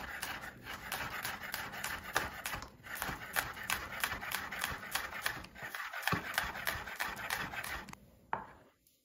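Kitchen knife rapidly chopping green onions on a bamboo cutting board: a quick, even run of blade taps on the wood, dying away shortly before the end.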